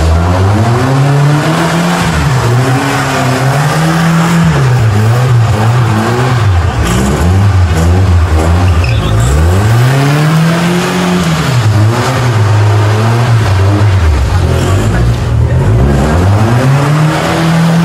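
A pickup truck's engine revving up and down over and over as it spins doughnuts on wet sand, with the rough noise of the spinning tyres beneath it.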